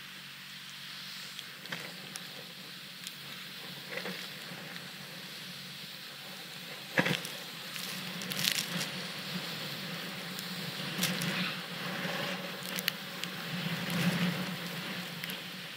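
Snowboard sliding through snow: a steady hiss with scattered crunches and scrapes as the board turns, and a sharp knock about seven seconds in.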